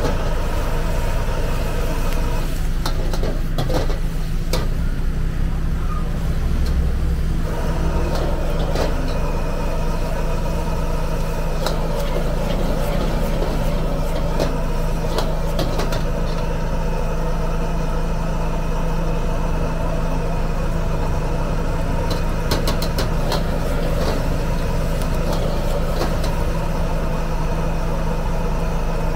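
Gas wok burner running steadily under a wok, with a metal wok ladle clanking and scraping against the pan at intervals as vegetables and noodles are stir-fried.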